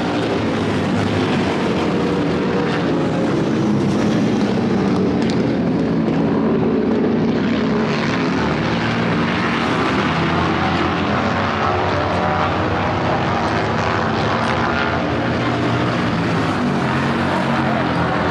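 Big motorcycle engines running steadily, a continuous drone whose pitch shifts slightly now and then.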